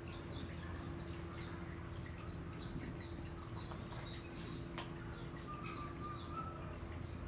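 Small birds chirping rapidly and repeatedly in high, quick downward notes over a steady low hum.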